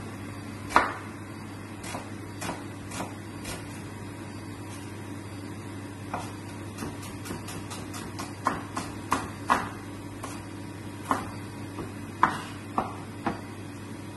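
Kitchen knife striking a plastic cutting board as onion is sliced, in irregular knocks, several in quick runs, over a steady low hum.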